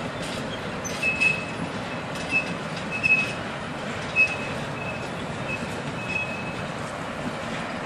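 Freight train cars rolling past with a steady rumble on the rails, broken by short, high wheel squeals that come and go at irregular intervals.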